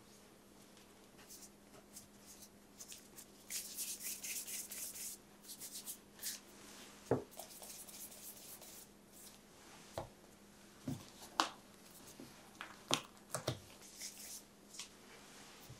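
Hands rubbing and rolling soft fresh mochi in dusting powder, a rushing hiss for a second or so, then several soft taps and pats as the rounded cakes are set down on a wooden board. A faint steady hum runs underneath.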